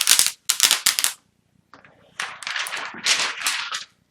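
Plastic protective film being peeled off a new laptop display panel, crackling in spells with a short pause in the middle.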